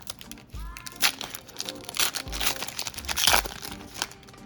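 Foil Pokémon booster pack being torn open and its wrapper crinkled, in several rustling bursts, the loudest about three seconds in.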